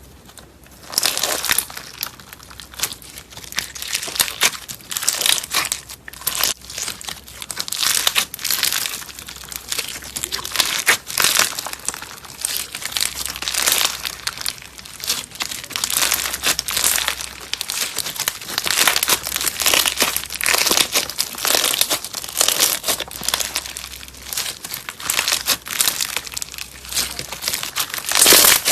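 Slime being squeezed and worked by hand, giving a dense, irregular run of small pops and clicks that starts about a second in.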